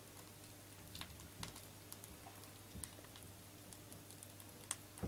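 Quiet, scattered soft ticks and squelches of choux pastry dough being squeezed out of a piping bag onto a parchment-lined baking tray, over a low steady hum.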